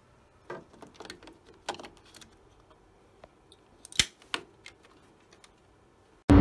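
Plastic clicks and light knocks of a refillable ink cartridge being pushed into an inkjet printer's cartridge bay, with one sharp click about four seconds in as it snaps into place. A loud burst of music starts right at the end.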